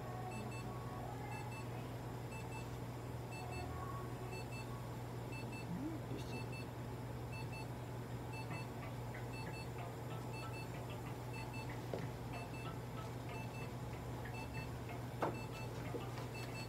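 Veterinary therapy laser unit beeping while it treats: short high double beeps repeating evenly, a little faster than once a second, over a steady low hum. A single click sounds near the end.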